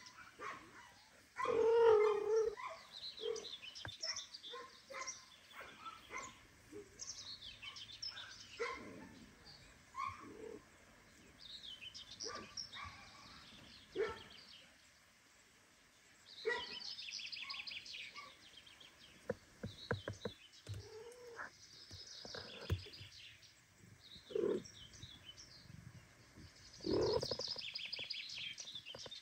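Mother cat and kittens calling: repeated short meows and high-pitched chirping mews, some coming in runs of a second or two, the loudest a meow about two seconds in and a run of calls near the end.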